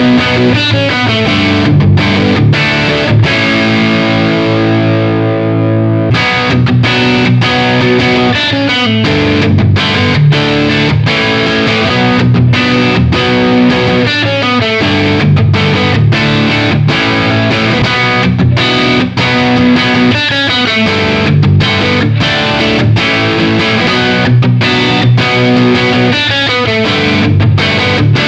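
Gibson Les Paul electric guitar with PAF-style humbucking pickups, played through a distorted amp tone: rhythmic chords and riffs, with one chord left to ring for a couple of seconds early on.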